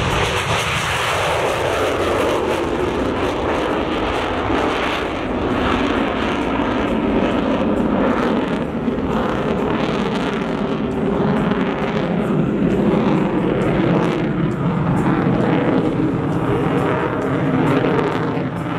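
Eurofighter Typhoon jet fighter taking off and climbing steeply away, its twin Eurojet EJ200 turbofans making a loud, steady jet roar. The low rumble drops in pitch over the first couple of seconds, and the noise crackles as the jet climbs.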